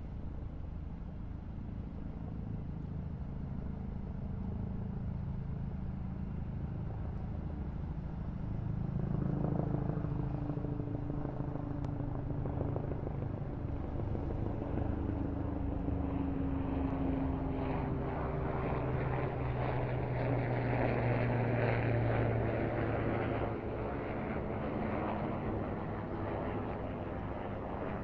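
Convoy of heavy military trucks driving past, their engines running with a steady low drone and tyre noise. It gets louder about nine seconds in as trucks pass close, with an engine note that slides slowly down in pitch, then eases off near the end.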